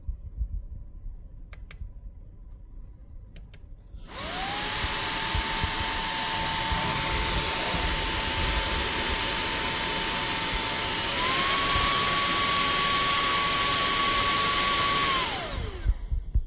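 TANYO cordless handheld vacuum cleaner's motor switched on about four seconds in, spinning up to a steady high whine. About seven seconds later it steps up to its higher speed setting, a little higher and louder, then it is switched off and winds down near the end.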